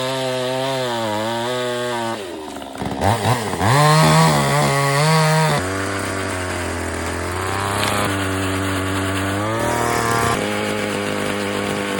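Chainsaw running steadily, its pitch dipping and then rising as it is revved. It is loudest about four to five seconds in, then drops back to a lower, steady speed.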